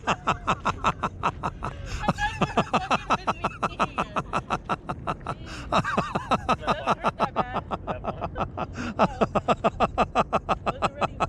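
Long, unbroken laughter: a fast run of short 'ha' pulses, about five or six a second.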